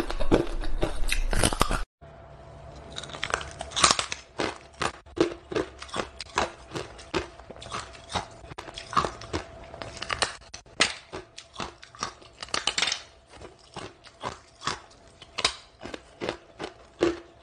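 Hard ice being bitten and chewed: a run of sharp, irregular crunches, several a second. It breaks off into a brief silence about two seconds in, then the crunching carries on somewhat quieter.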